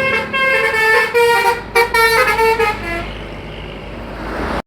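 Bus 'telolet' musical horn playing a quick tune of several stepped notes, ending a little under three seconds in. Traffic rumble from the road follows.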